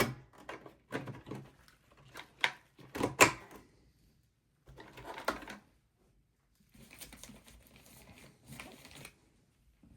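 Plastic fan shroud being fitted into a desktop PC case: a quick series of plastic clicks and knocks over the first few seconds, then softer scraping and rustling.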